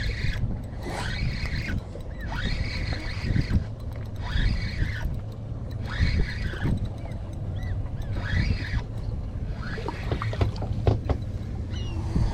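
Wind rumbling on the microphone aboard an open boat, with a higher sound that rises and falls about once a second.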